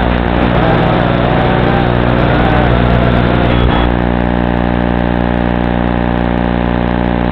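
A steady electrical buzzing hum, with the quadcopter's brushless motors whining and shifting in pitch on top of it. About four seconds in, as the drone comes down in the grass and disarms, the motor whine stops and only the steady buzz is left.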